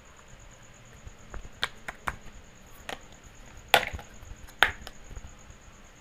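Small plastic toy kitchenware clacking as it is picked up and set down by hand. A few light taps come first, then two louder knocks close to a second apart, near the four-second mark.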